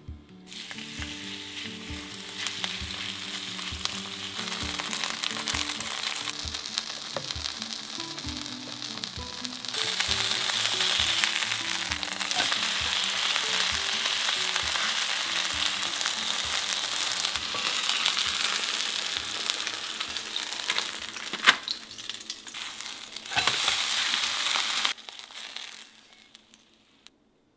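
Vegetable pancake batter frying in hot oil in a pan with a steady sizzle. It starts just after the batter goes in, gets louder about ten seconds in, has a couple of sharp taps near the end, and dies away a second or two before the end.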